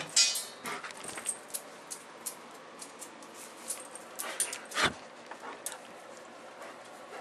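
A Belgian Shepherd dog moving about near steel food bowls: a run of light metallic clinks and jingles, with a loud ringing clank right at the start and another loud knock about five seconds in.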